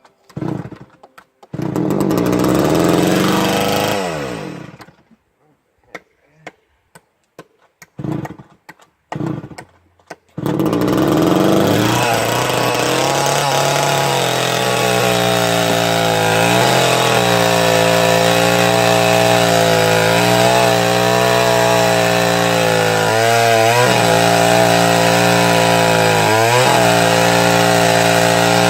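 Old two-stroke chainsaw being pull-started: it sputters for a few seconds and dies, is pulled again, then catches about ten seconds in and runs steadily, its pitch wavering a couple of times. The carburetor is fouled and the saw is not running right.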